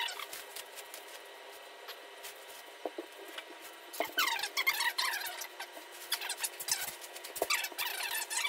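Foam packing peanuts being scooped and pushed together by hand on carpet, a crackly, squeaky rustle. It starts about four seconds in, after a quieter stretch with a few soft knocks.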